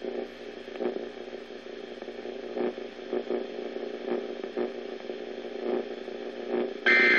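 A NOAA Weather Radio receiver giving off steady static and mains hum with faint crackles between transmissions. Near the end comes a short, loud, buzzy two-tone digital burst: a SAME end-of-message data burst closing the weather radio test.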